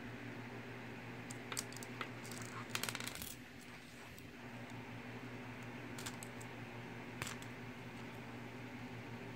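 Plastic Mega Bloks bricks clicking and clattering as a built piece is handled and pressed together, with a quick run of clicks about three seconds in and single clicks later. A steady low hum runs underneath.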